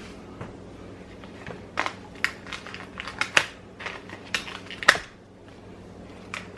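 Kitchen handling sounds: a run of sharp clicks and knocks, about a dozen between two and five seconds in, the loudest near five seconds, over a steady low hum.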